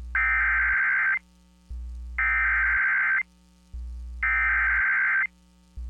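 Emergency Alert System SAME header: three one-second bursts of digital data tones with about a second between them, the coded header that opens a severe thunderstorm warning. A low hum sounds in the gaps between the bursts.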